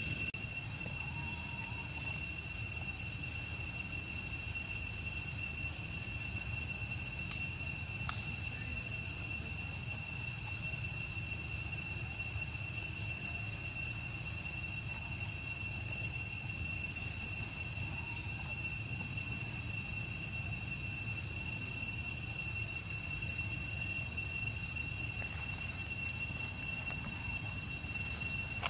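Steady high-pitched insect drone, one unbroken tone held at an even level throughout, over a low rumble of background noise.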